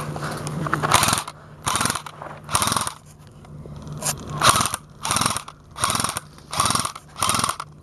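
A run of about eight short ratcheting bursts, one roughly every three quarters of a second: the thumb wheel of an airsoft high-capacity magazine being wound to feed BBs.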